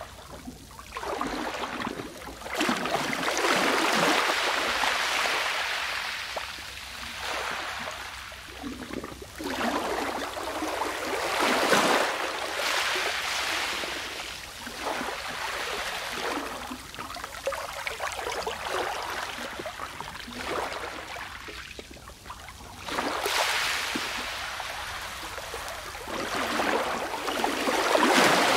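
Sea waves washing onto a shore: a loud rush of water that swells and fades every several seconds.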